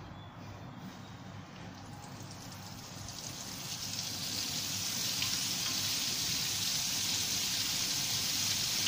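Battered fish fillet deep-frying in hot oil in an aluminium wok: the sizzle starts about three seconds in, builds over a second or two and then holds as a steady hiss.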